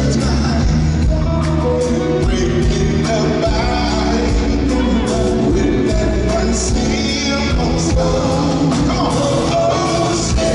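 Live soul and R&B band playing, with a male lead singer singing over it.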